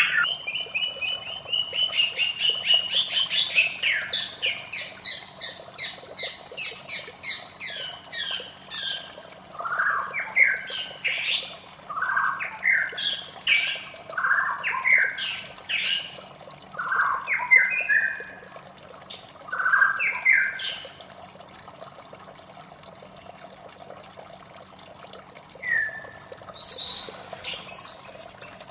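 White-rumped shama (murai batu) singing: a fast run of short repeated notes over the first nine seconds, then a string of separate slurred phrases. After a pause of a few seconds, a quick burst of high notes comes near the end.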